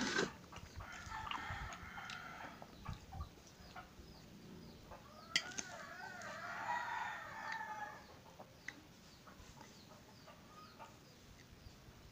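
Chickens clucking and a rooster crowing, with one long crow about five and a half seconds in that lasts some two seconds. Scattered sharp clicks of a fork on a ceramic plate and eating sounds come through beneath.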